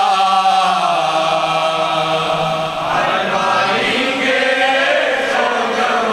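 Male voices chanting a noha, a Shia mourning lament, through a microphone in long, drawn-out sung lines that slide in pitch.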